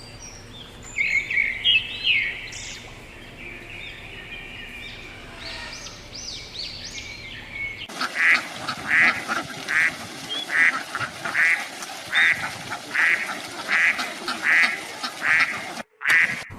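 Animal calls from two spliced recordings: first a scatter of short chirping notes, then after a sudden cut a steady series of about a dozen evenly spaced calls, a little more than one a second.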